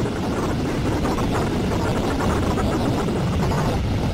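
Electronic drone from a Ciat-Lonbarde Cocoquantus and a Korg Volca FM: a steady, dense, noisy texture, heaviest in the low end, with a fast flutter running through it.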